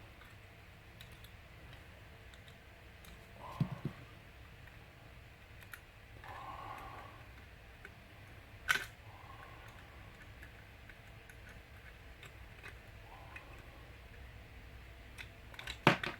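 Small plastic parts of a model locomotive being handled and fitted together: a few sharp clicks and taps, the loudest near the end, with faint rustling between.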